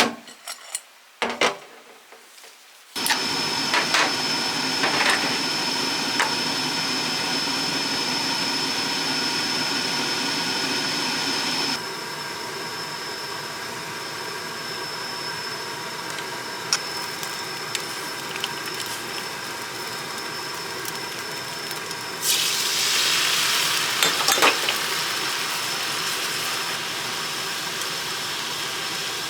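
A small electric motor or fan switches on about three seconds in and runs steadily with a whine. It drops to a quieter setting partway through, and a hissing rush joins it for a few seconds later on.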